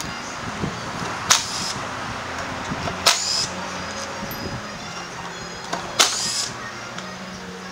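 Three sharp metallic clinks with a brief ring, at about one, three and six seconds in, over a steady low hum, as screws are worked out of a scooter's plastic body panels with a cordless impact driver.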